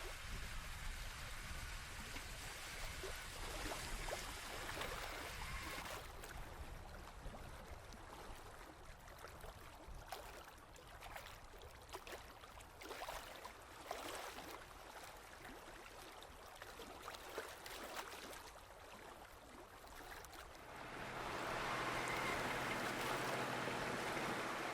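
Water lapping and trickling against a boat's hull, with many small splashes, and a low rumble underneath. It grows louder about 21 seconds in.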